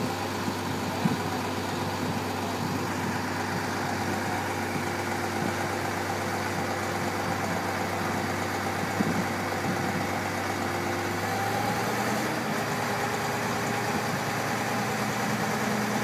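Diesel engine of a concrete boom pump truck running steadily while it pumps concrete for house footings, with a few faint knocks. Its note changes about eleven seconds in.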